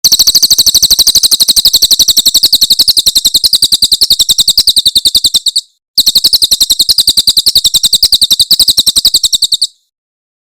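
Rapid, evenly repeated high-pitched bird trill, about a dozen notes a second, in two long runs split by a brief pause about five and a half seconds in. It is a filler-song recording used to teach competition songbirds new phrases.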